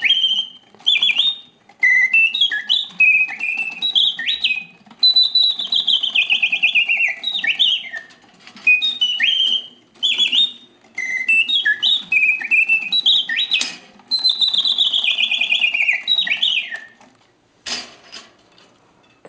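Antique Bontems singing bird cage's bellows-driven whistle playing mechanical birdsong in continuous mode: quick chirps and repeated long trills that fall in pitch, loud and clear. The song stops near the end, followed by a single click.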